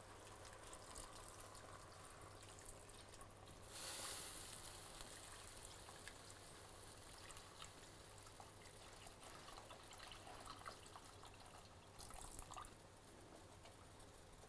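Liquid stock poured from a carton into a pot of stew: a faint trickling splash, a little louder about four seconds in.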